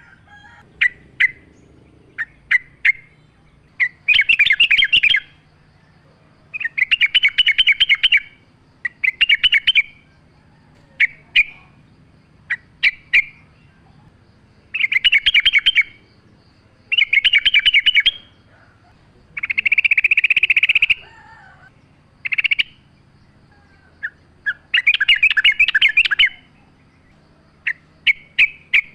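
Yellow-vented bulbul (trucukan) singing: loud bubbly, chattering phrases of about a second each, repeated every couple of seconds, with short single notes in between.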